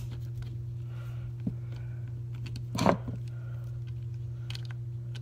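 A screwdriver working a screw in a small electric motor's metal housing: a few light clicks of tool on metal, and a louder knock just under three seconds in. A steady low hum runs underneath.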